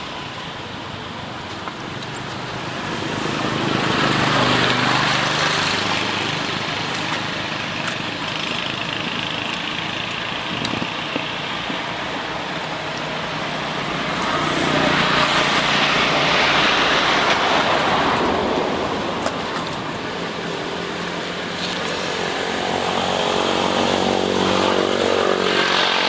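Motor vehicles passing one after another: engine noise swells and fades three times, a few seconds in, around the middle and near the end.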